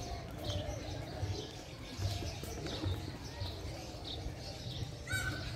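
Small birds chirping: short high chirps about twice a second, with one louder whistled call about five seconds in.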